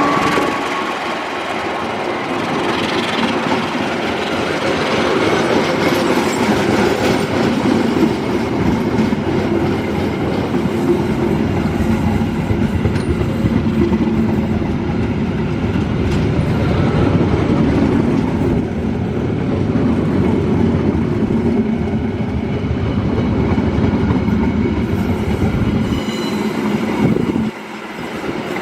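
A train running past on the rails, its wheels clacking steadily over the rail joints. The noise drops away suddenly near the end.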